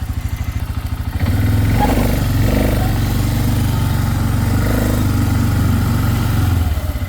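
Four-wheeler engine running underway; about a second in it is throttled up and runs louder for about five seconds, then eases back near the end.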